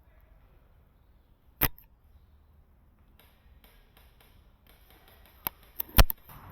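Sharp mechanical snaps and clicks from a spring-powered SRS airsoft bolt-action sniper rifle being handled and fired. There is one snap about a second and a half in, faint rattling after it, and then a quick run of three sharp clicks near the end, the last and loudest about six seconds in.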